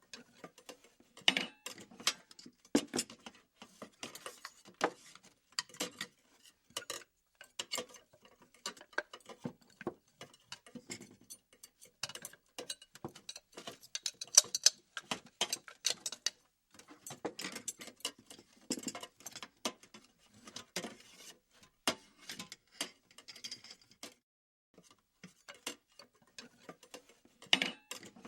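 Metal utensils being moved and handled: irregular light clicks, clinks and rattles, some in quick clusters, with short pauses between.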